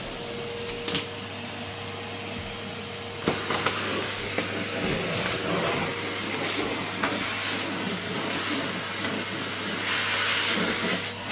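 Red Henry cylinder vacuum cleaner running with a steady hum. About three seconds in there is a click and the suction hiss becomes louder and fuller, with scattered small ticks.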